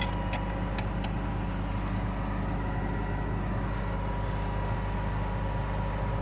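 Case IH combine's engine running steadily with a constant whine, stopped while the broken feeder drum chain on the header is inspected. Two faint, short hisses come about two and four seconds in.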